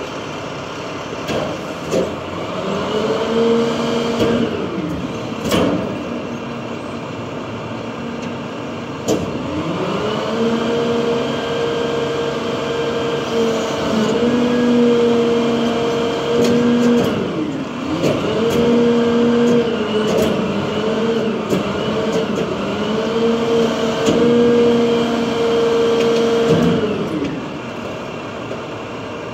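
Diesel engine of an International trash truck with a Heil rear-loader body revving up and holding a raised speed to drive the hydraulic packer, then dropping back to idle. It revs briefly a couple of seconds in, then stays up for most of the rest with short dips, and falls away near the end. A few sharp knocks come in between.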